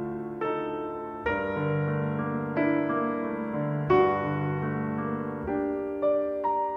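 Slow piano music: held chords and single notes, with a new note or chord about every second.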